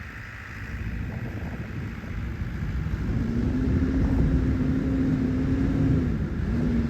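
A New Holland B95 backhoe's diesel engine running with a low rumble, getting louder about three seconds in as a steady engine note comes up, with a brief dip near the end.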